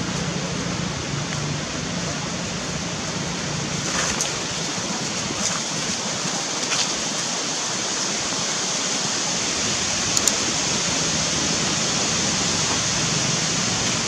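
A steady, even hiss of outdoor background noise with a low hum beneath it, broken by a few faint clicks.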